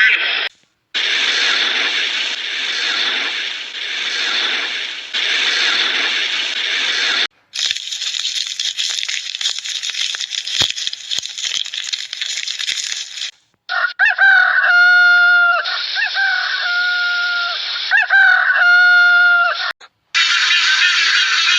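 Chickens and roosters: busy flock noise in the first half, then a run of five or so loud, drawn-out crows, each about a second long, in the last third, with abrupt cuts between clips.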